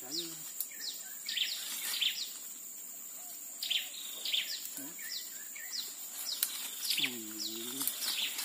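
Birds calling over and over with short whistles that slide downward, over a steady high insect whine. A short low hum comes about seven seconds in.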